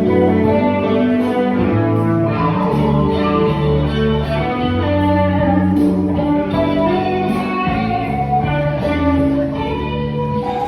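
Music: plucked guitar notes over a moving bass line.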